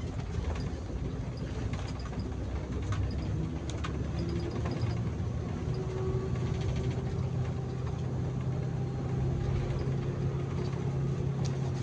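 Bus engine running while driving, heard from inside the cab: a steady low rumble with road noise, and an engine hum that grows stronger and steadier about four seconds in.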